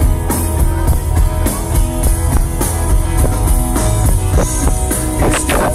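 Loud rock music with drum kit and guitar, a steady beat with no singing.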